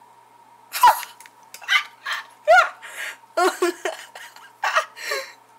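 A person coughing and making wordless vocal sounds, in a string of short bursts over about four seconds, some rough and some with a voice sliding up and down in pitch.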